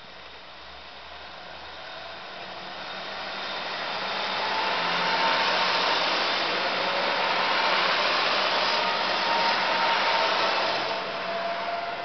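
Three-car diesel railcar train on the JR Takayama Line passing close by at low speed, its engine and wheel noise building to a steady peak and easing off near the end, with a faint held whine over it.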